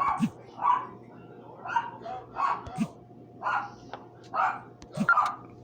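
A dog barking over and over, about eight short barks at a steady pace of roughly one a second.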